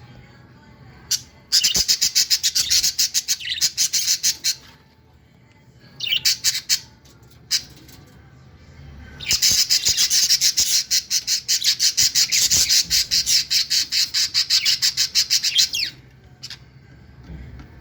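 Budgerigar nestlings calling in rapid raspy pulses, in three bouts with quiet gaps between; the last bout is the longest, running several seconds.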